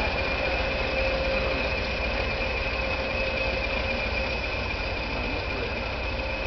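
Class 20 diesel locomotive's English Electric engine running as the train pulls slowly away, a steady engine note with a steady high whistle over it, easing off slightly as it draws away.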